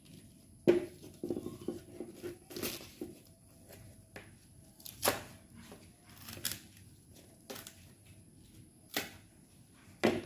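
Hand repair work on a sandal sole: irregular small knocks and handling clicks, with a few louder short noisy strokes spaced a second or more apart.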